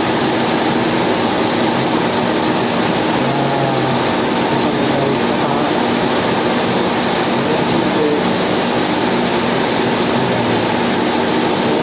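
Steady, loud rushing noise with no break.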